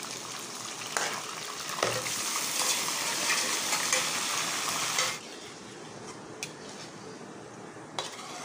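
Yogurt-marinated minced meat going into hot ghee and fried onions in a wok, sizzling loudly for about four seconds, then dropping suddenly to a quieter sizzle while it is stirred. A few sharp clinks of the metal spoon and bowl against the pan.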